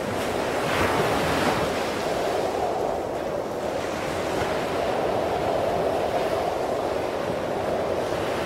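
Ocean surf breaking and washing up the sandy shore in a steady rush, with strong wind buffeting the microphone.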